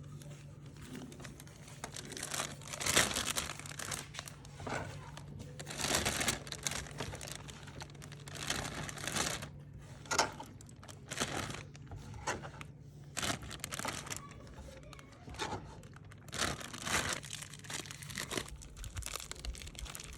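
Plastic bag crinkling and rustling in irregular bursts as chopped tomatoes are bagged for the freezer. A steady low hum runs underneath and stops near the end.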